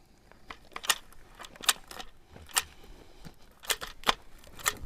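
Mingo marker run along an oak log, snapping out a dot of spray paint every 16 inches: a series of short, sharp clicking hisses, about one a second.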